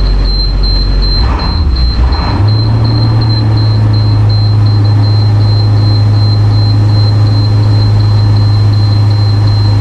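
International T444E 7.3-litre V8 turbo-diesel engine idling in the school bus; its note changes about two seconds in, then holds steady. A steady high-pitched tone sounds over it.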